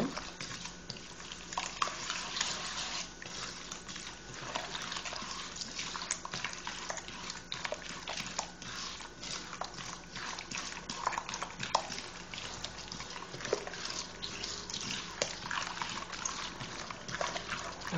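Hand beating raw eggs and sugar in a large bowl: wet, uneven sloshing strokes with small splashes, working the mixture until the sugar dissolves.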